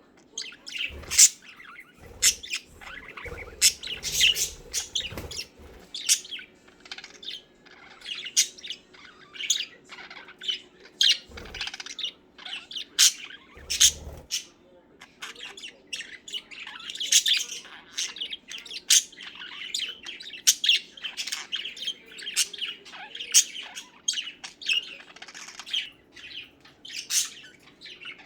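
Pet budgies chirping and warbling, many short sharp calls with a busier run of chatter partway through.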